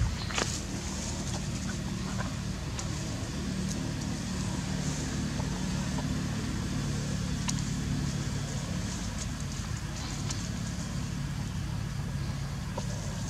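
Steady low engine hum, with scattered faint clicks over it.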